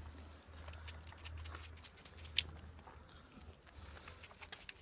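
A deer fawn sucking milk from a feeding bottle's rubber teat: faint, irregular wet clicks and smacks, with one sharper click a little over two seconds in.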